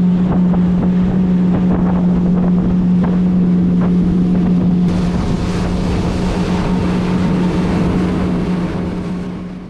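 Outboard motor of a fishing boat running steadily at cruising speed, a constant low drone, with wind buffeting the microphone and water rushing past; it fades out at the very end.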